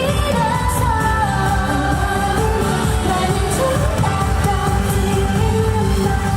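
K-pop song sung by a female vocal group: held, gliding vocal lines over a steady pop beat.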